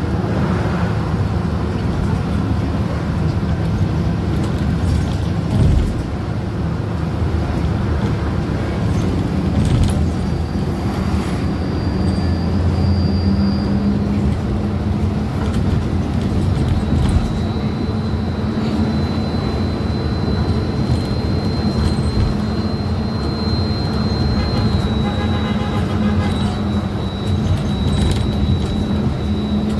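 Interior of a moving city bus: steady engine and drivetrain rumble with scattered rattles. A thin high whine comes in twice, and the low engine note grows stronger about halfway through.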